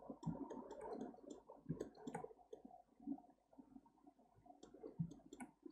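Faint, irregular clicking of a computer mouse, many small separate clicks with a lull in the middle.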